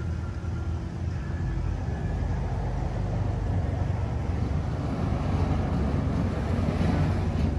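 Steady low rumble of a vehicle engine running in the open, growing somewhat louder in the second half.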